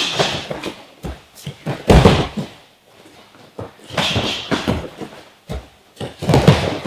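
Punches smacking on gloves and body and bare feet slapping on a padded gym mat during a double-leg takedown drill, with heavy thuds about two seconds in and again near the end as the partner is lifted and driven down.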